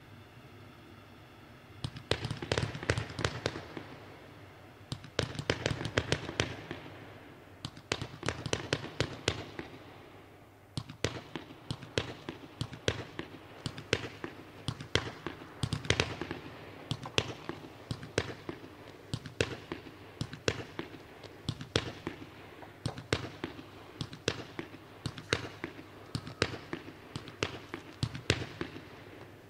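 Consumer firework battery (cake) firing shot after shot: sharp launch bangs and bursts, in dense clusters at first, then a steady run of single shots about two a second.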